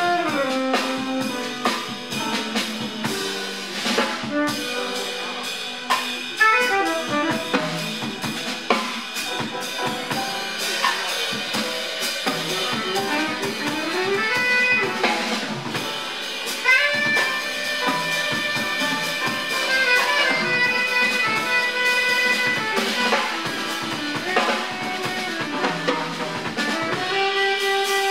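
Live jazz quartet playing: tenor saxophone carrying the melodic line, with held notes and quick runs, over piano, double bass and a busy drum kit.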